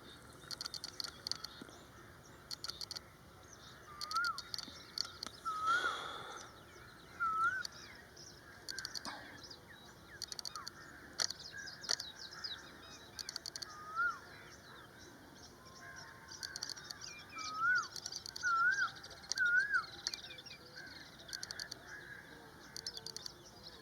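Wild birds calling in the open: many fast, high chattering trills, with a short clear whistle that rises and drops, repeated seven or so times.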